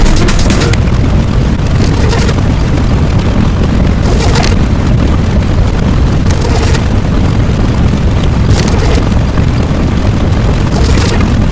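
Sound-effect explosion rumble: a loud, continuous deep rumble, broken about every two seconds by a short burst of hiss.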